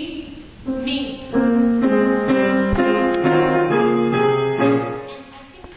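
Piano accompaniment playing a run of sustained chords. The chords grow loud about a second in and fade away near the end.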